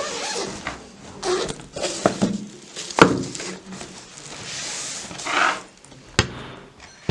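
Handling noises in a small room: a few sharp clicks and knocks, the loudest about three seconds in and another near six seconds, with a short hiss around five seconds.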